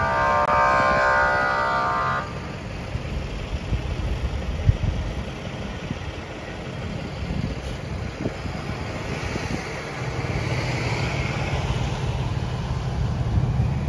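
A vehicle horn sounds steadily and cuts off about two seconds in. Street traffic follows, with engines running and vehicles passing, and a steady low engine hum from about ten seconds in.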